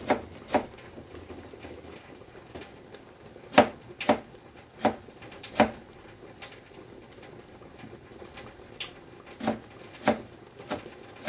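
Kitchen knife cutting through a firm vegetable and knocking on a cutting board: single strokes in small groups of two to four, with pauses of a few seconds between groups.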